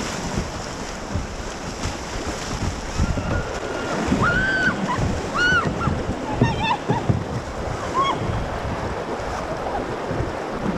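River water rushing and splashing around a kayak, with wind buffeting the microphone. A few short, high, rising-and-falling cries come in the middle.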